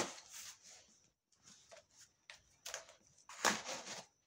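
Packing tape on a cardboard box being scraped and picked at with a small tool. A sharp rasp comes at the start, a few faint scratches follow, and then a run of louder scrapes near the end.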